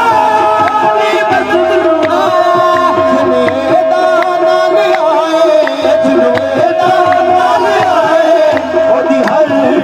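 Qawwali: several male voices singing over a harmonium holding a steady note, with hand claps and percussion keeping a regular beat.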